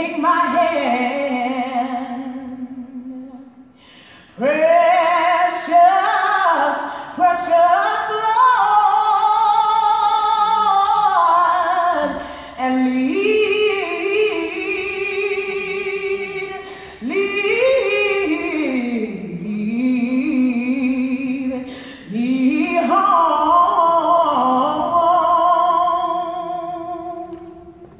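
A gospel choir singing slow, long-held chords with vibrato, in phrases separated by short pauses.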